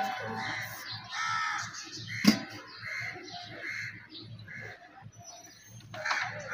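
Crows cawing over and over, with one sharp metallic clank a little over two seconds in as a steel plate is set on the cooking pot as a lid.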